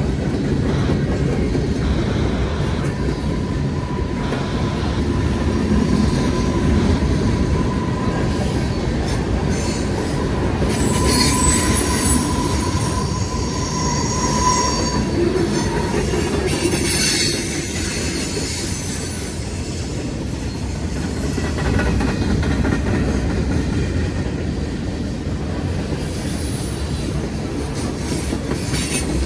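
Freight train rolling past with a steady rumble of wheels on rail. A thin, steady wheel squeal runs through the first half, with sharper high-pitched flange squeals about a third of the way in and again just past the middle.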